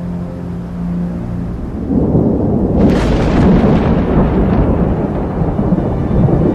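Thunder: a rolling rumble builds about two seconds in, with a sharp crack about a second later, then rumbles on. Before it, a low sustained chord of soundtrack music.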